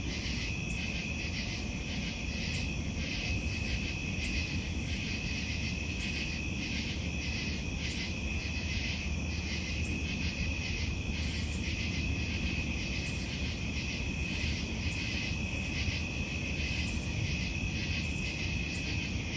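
Night chorus of frogs calling, with one steady high trill and rapid pulsing calls above it, over a continuous low rumble from the thunderstorm.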